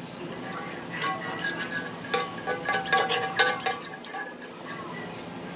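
A spoon scraping and knocking against a skillet as barbecue sauce is scraped out of the pan: a run of scrapes and clicks, some with a short ring, starting about a second in and easing off near four seconds.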